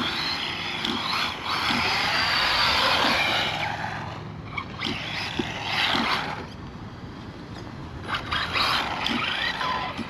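ZD Racing RX12 electric RC rally car driving on a road: its motor and tyres come up loud for the first few seconds, then twice more in shorter surges near the middle and near the end.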